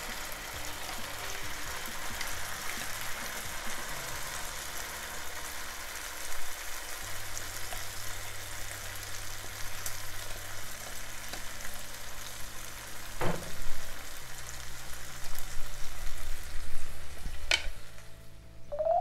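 Ground masala paste sizzling as it goes into hot oil in a pan, scraped in from a blender jar with a wooden spatula, with a few sharp knocks of the spatula against the jar in the second half.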